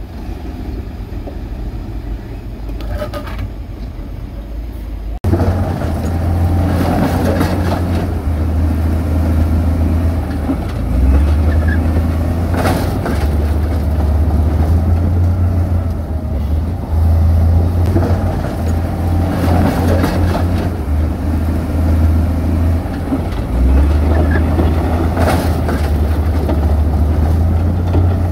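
Heavy diesel construction machinery running, a low steady engine drone that rises and falls with load. It cuts abruptly to a louder engine about five seconds in, with a few sharp clanks scattered through.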